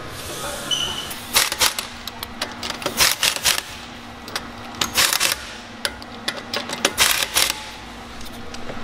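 Hand tools clattering and knocking on metal: four quick bursts of sharp clicks, about two seconds apart.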